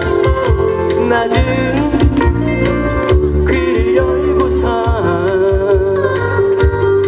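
Live song through a PA: a man singing long held notes with vibrato over an acoustic guitar and band backing with a steady beat.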